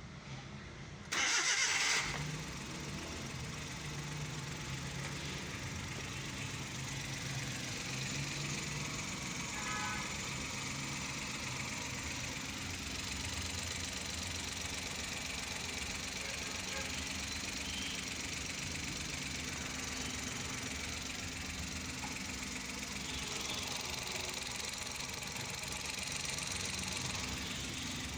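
Suzuki Every three-cylinder engine started: a brief loud burst about a second in as it cranks and catches, then a steady idle, freshly rebuilt after a leaking head gasket and valves.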